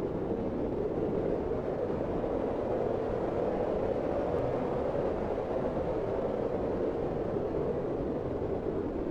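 Storm wind blowing steadily across a mountain, a dense, unbroken noise that swells slightly about halfway through.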